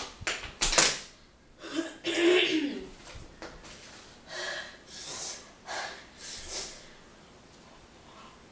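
A person gasping and panting through the mouth, with a drawn-out voiced exhale about two seconds in and a run of breathy huffs after it. This is the reaction to the burn of 2X spicy noodles.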